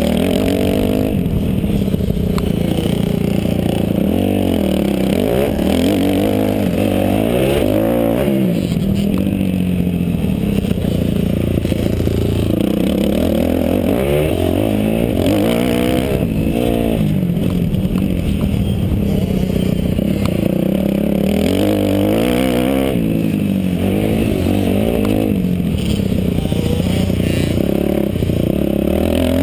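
Kawasaki KX250F four-stroke single-cylinder motocross engine under hard throttle, its revs climbing and dropping over and over as it is ridden through gears and corners, with a steady rush of wind noise underneath.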